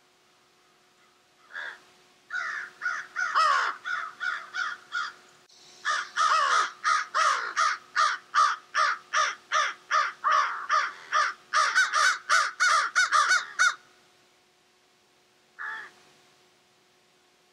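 A group of American crows cawing in long rapid runs of harsh caws, about two or three a second, from about two seconds in until near fourteen seconds. One more caw comes near the end.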